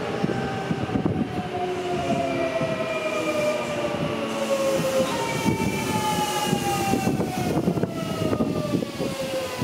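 Kintetsu 1252-series electric train arriving and braking. Its traction motor whine falls steadily in pitch as it slows, over the rumble and clatter of wheels on rail.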